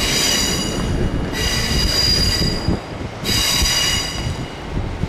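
Wheels of a passing container freight train squealing in three high-pitched bouts a second or so each, over the steady rumble of the wagons rolling by.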